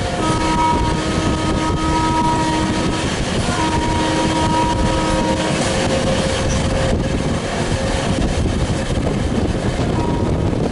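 Electric locomotive horn sounding two long blasts, the second starting about three and a half seconds in, with a third beginning near the end, over the steady rumble of a train running at speed.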